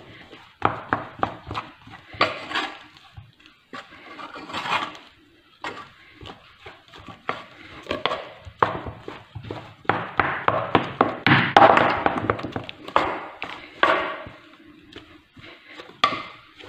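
Wooden spatula beating and scraping a thick, hot flour dough in a stainless steel saucepan. It makes irregular scrapes and knocks against the pot, busiest partway through.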